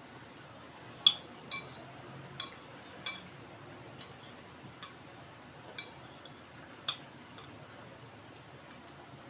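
Eating utensils clinking against a bowl during a meal of instant noodles: about eight light, irregular clinks, each with a short ring, the sharpest about a second in.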